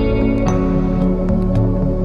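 Background music: gentle new-age instrumental with sustained notes and plucked notes coming in every half second or so.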